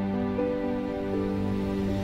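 Background music with slow, held notes and chords over a steady bass.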